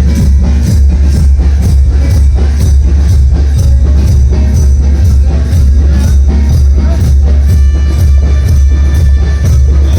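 Loud music with a heavy, continuous bass and a steady beat of about three strokes a second.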